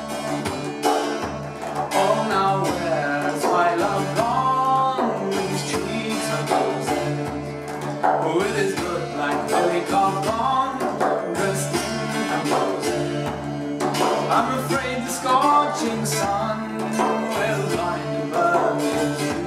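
Open-tuned Irish bouzouki strummed and picked, with an Arabic frame drum struck by hand in a steady rhythm, playing an instrumental passage of a Celtic traditional song. A wordless vocal line wavers over them in places.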